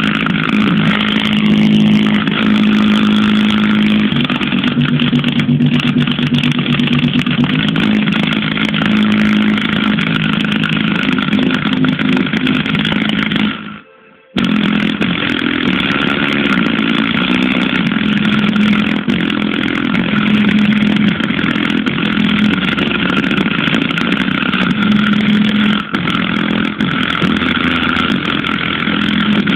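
Bass notes played loud through a subwoofer speaker that distorts heavily, so the shifting bass line comes out as a harsh, engine-like buzz: a bad-sounding bass speaker. The sound cuts out for about half a second roughly halfway through.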